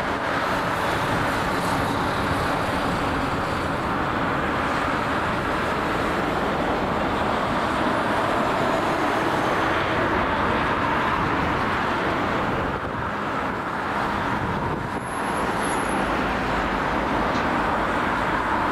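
Airbus A380's four jet engines running on final approach as the airliner passes low over the runway threshold to land: a steady, broad jet rumble with a short dip about fifteen seconds in.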